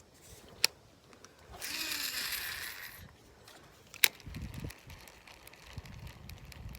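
A fishing cast: a sharp click, then line hissing off the reel for about a second and a half, then another sharp click, followed by low rumbling.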